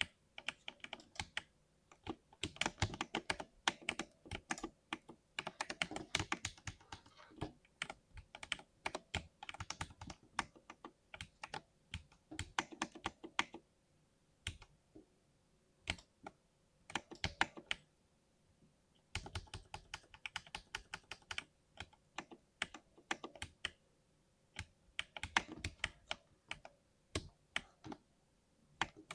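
Typing on a 60% mechanical keyboard with lubed switches: quick flurries of keystroke clacks broken by short pauses.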